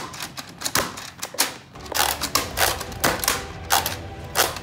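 Nerf foam-dart blasters firing over and over: a quick, irregular run of sharp snaps and clicks, a few every second.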